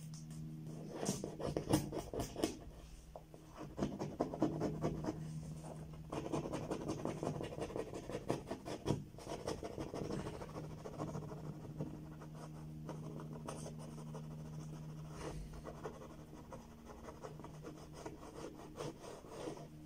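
Hand-held razor-blade scraper pressed hard against windshield glass, scraping a holographic foil registration sticker off in many short, irregular strokes. A steady low hum runs underneath.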